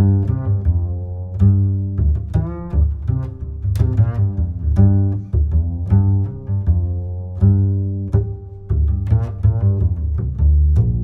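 Background music with a strong bass line and plucked notes in a steady rhythm.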